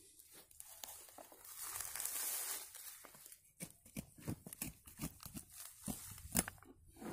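Dry pine needles and leaf litter rustling and crackling as they are handled, then a string of short knocks and scrapes, the loudest about six seconds in.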